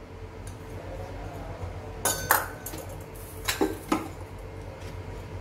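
Small stainless steel bowl clinking, in two pairs of sharp metallic clicks with a short ring, as it is tapped out over a plastic mixing bowl and set back down on a stone countertop.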